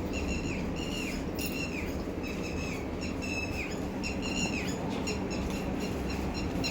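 A bird calling over and over, about two short calls a second, each ending with a downward slur, then quicker, shorter chirps near the end. A steady low hum runs underneath.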